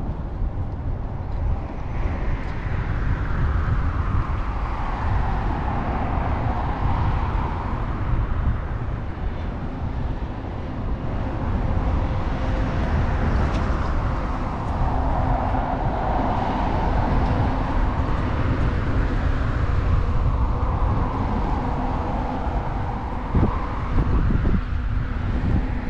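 Road traffic passing close by, about three vehicles swelling and fading one after another, over a steady low rumble of wind on the microphone.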